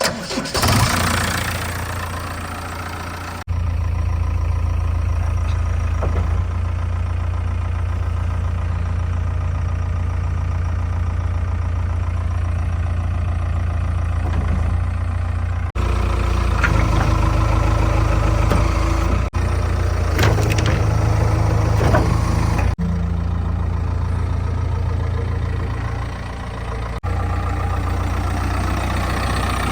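Heavy diesel machinery engine running steadily, working on a mud-loading job. The sound shifts abruptly at several spliced cuts and is somewhat louder between about 16 and 22 seconds.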